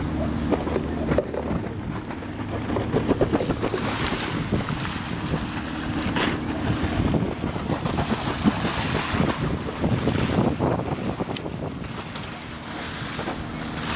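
Waves breaking and rushing over a shallow harbour sandbar, swelling louder twice, with gusty wind rumbling on the microphone.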